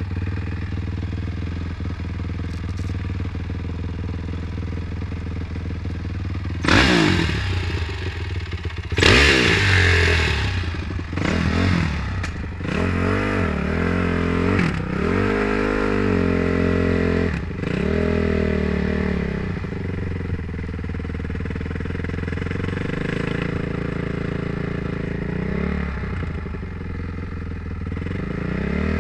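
Honda CRF450R dirt bike's single-cylinder four-stroke engine idling steadily, then revved hard twice around seven and nine seconds in. It then rises and falls in pitch several times as the bike pulls away and settles into steady running.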